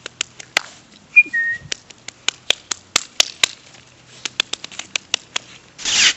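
Crunching on crusted snow and frozen ground, in sharp, irregular clicks several times a second. A brief high two-note squeak comes about a second in, and a louder rustling burst near the end.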